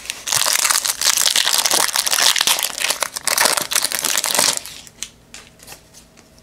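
Foil wrapper of a Fleer Ultra football card pack crinkling loudly as it is torn open and the cards are pulled out, stopping after about four and a half seconds; then only faint rustling of the cards.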